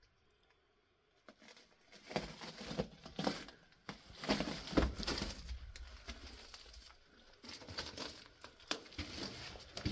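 Footsteps crunching and scuffing on loose rock and gravel, irregular, starting about two seconds in.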